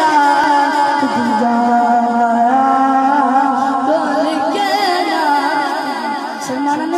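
A boy singing a naat into a microphone, unaccompanied, in long held notes with wavering ornaments that slide between pitches.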